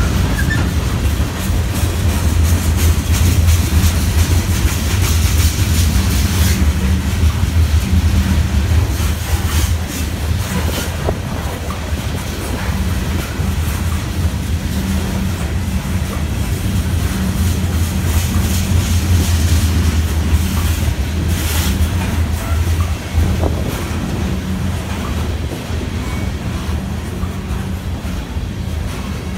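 Norfolk Southern freight train rolling past: a steady low rumble from the moving cars, broken by a few sharp clicks of wheels over rail joints.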